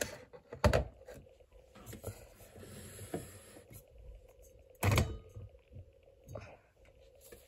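Quiet handling noise: rustling as a plush toy is moved about on a table, with two soft bumps, one under a second in and one about five seconds in.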